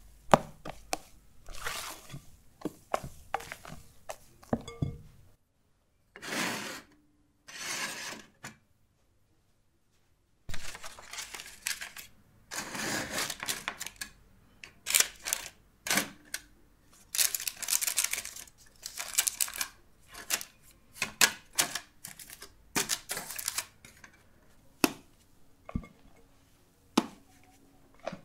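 A silicone spatula folds thick meringue batter in a glass bowl, with wet squelches and quick taps against the glass. Then parchment paper rustles and crinkles as it is fitted into a square metal cake frame on a baking tray, with light clicks and knocks of the frame and tray.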